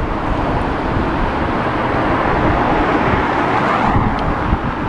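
Road traffic: a car passing close by, swelling and then fading, over wind buffeting the microphone.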